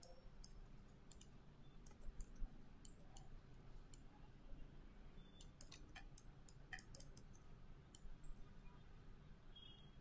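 Faint, irregular computer mouse clicks, some in quick little runs, over quiet room tone.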